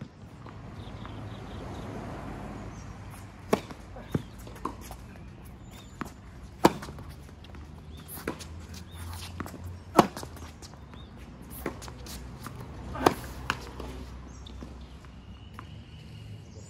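Tennis balls struck by rackets on a hard court: a serve, then a rally, with a sharp loud pop from the near player's racket about every three seconds and fainter hits and ball bounces between them.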